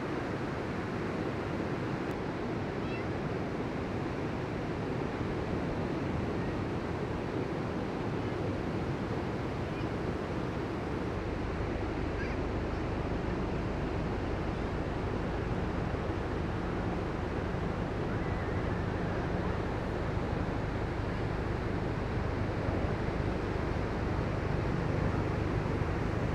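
Ocean surf breaking and washing up the beach, a steady rushing sound that gets a deeper rumble from about eleven seconds in.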